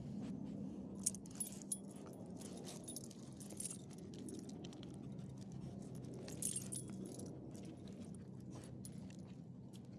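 Small metal pieces jingling and clinking, with several sharp clinks a second or two in and more jingling about six and a half seconds in, over a steady low hum.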